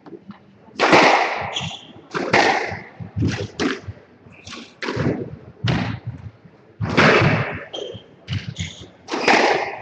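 Squash rally: the ball smacks sharply off the rackets and the walls, one to two hits a second, each ringing briefly in the enclosed court.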